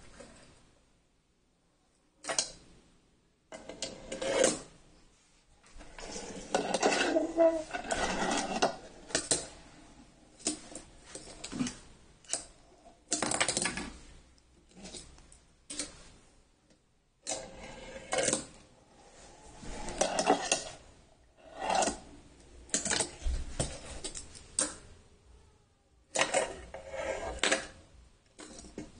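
Fingerboard ridden by hand on a wooden desk and ramp: its small wheels and metal trucks rolling, grinding along an edge and clacking down on the wood, in irregular bursts of a second or two with short pauses.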